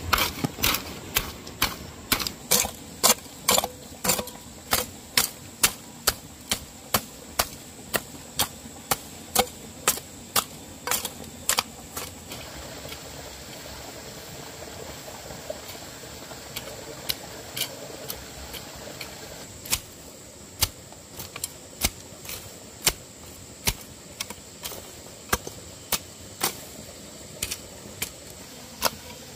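A series of sharp knocks or taps, about two a second, that stop for several seconds midway and then resume at about one a second.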